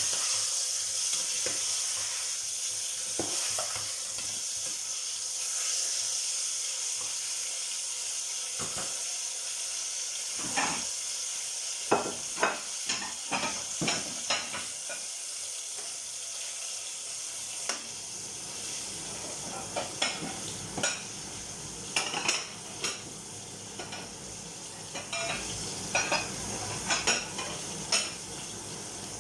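Food sizzling in a frying pan, a steady hiss, with repeated clinks of dishes and cutlery, most of them in the middle and near the end.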